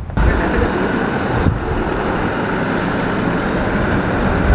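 Wind buffeting the microphone: a steady rushing noise with heavy low rumble.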